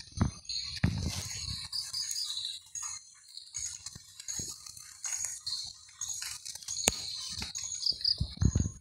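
Outdoor chorus of insects, crickets or cicadas, with a steady high drone, and short bird chirps repeated over it in quick runs of two or three notes. Low bumps from the phone being handled come near the start, about a second in, and near the end.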